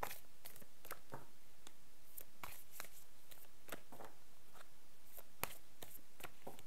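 Scattered small clicks and ticks over a steady room hiss, with a slightly louder click about five and a half seconds in.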